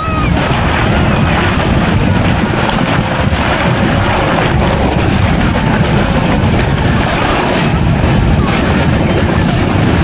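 Floodwater swirling into a whirlpool and draining down a hole: a loud, steady rushing of water.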